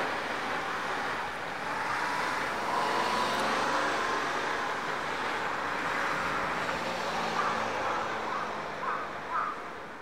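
Tsurumi Line 205 series electric train running on away along the track, a steady rumble of wheel and traffic-like noise, with a faint thin high whine about two to four seconds in. A few short high chirps come near the end.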